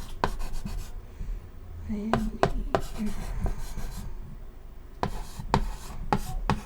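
Chalk writing on a chalkboard: quick scratchy strokes and taps in bursts, with a short pause about halfway through.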